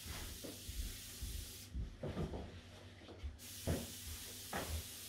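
Hose-fed disinfectant spray gun from a pressurised canister hissing as it puts out a fine fog mist. The spray stops about a second and a half in and starts again about three and a half seconds in, with a few soft knocks from handling.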